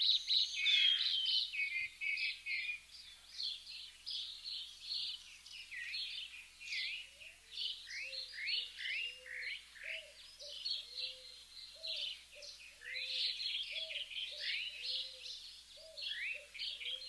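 Small birds chirping busily, with many quick, high, overlapping chirps and sweeping notes. About halfway through, a lower call joins, repeating in short arching notes roughly twice a second.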